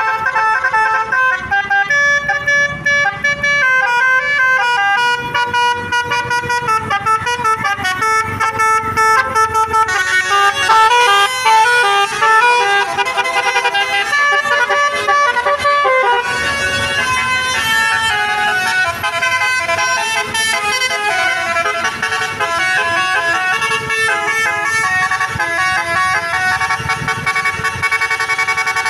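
Bus telolet horn of the Basuri type playing a tune: several horn tones sounding together and stepping quickly from note to note without a break, the melody changing about halfway through.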